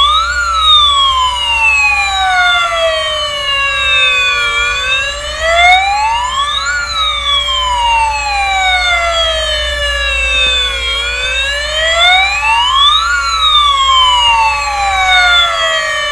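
Toy fire truck's electronic siren wailing: the pitch climbs briefly and then falls more slowly, repeating about every six seconds.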